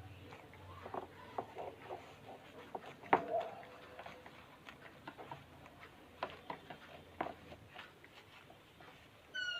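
Scattered light clicks and taps of hands working craft materials, a washing-machine cover, with one sharper click about three seconds in.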